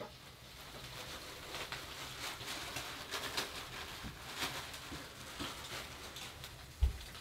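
Open fire crackling in a small grate, with irregular small pops and ticks; a single low thump near the end.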